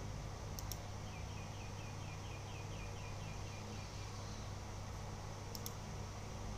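A rapid run of about a dozen short, falling chirps, about six a second, lasting two seconds, over a steady low hum. A pair of sharp clicks comes just before the chirps and another near the end.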